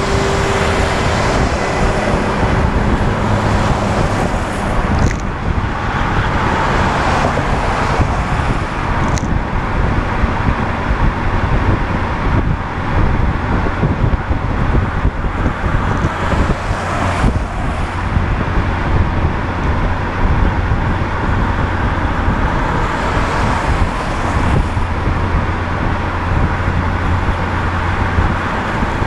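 Road noise of a car driving at highway speed: steady tyre and wind noise, with louder swells as a tractor-trailer and other vehicles go by.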